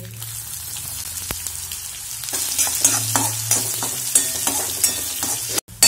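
Chopped onions sizzling in hot oil with tempered mustard, cumin and coriander seeds in a metal kadhai. From about two seconds in, a utensil scrapes and clinks against the pan as they are stirred. The sound cuts out briefly near the end.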